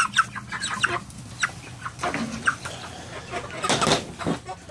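Cornish cross broiler chickens clucking in short, scattered calls, with a brief scuffle of noise about four seconds in.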